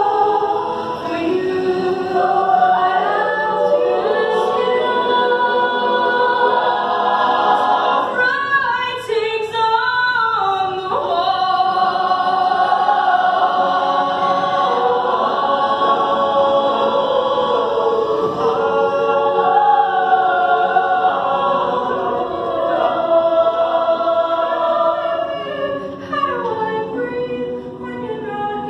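Mixed youth choir of boys and girls singing a ballad in parts, with long held chords. The singing softens near the end.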